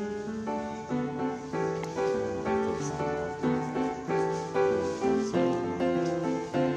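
Background piano music: a flowing melody of steady notes changing several times a second.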